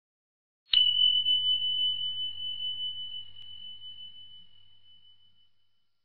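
A single high bell ding, a sound-effect chime struck once about a second in. It rings on one steady pitch with a slight waver and fades away over some four seconds.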